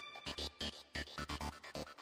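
Quiet background music with a pulse of soft, short low beats, in a hushed passage between louder sections.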